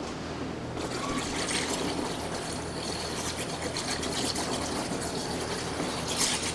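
Underwater plasma cutting torch on a CNC water table cutting steel plate: a hissing, crackling rush of gas bubbling through the water, starting about a second in over a steady machine hum and cutting off suddenly near the end.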